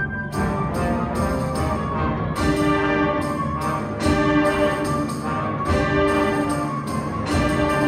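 Concert band playing, brass to the fore: held full chords punctuated by repeated sharp accented hits.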